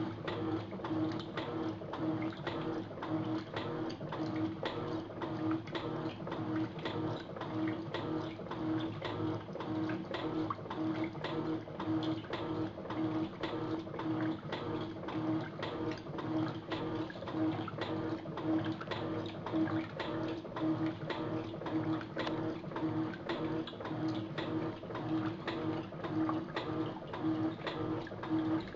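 Electrolux top-loading washing machine agitating during its rinse, the motor humming and water sloshing in a steady back-and-forth rhythm of several pulses a second. The owner says the machine's bearings are blown.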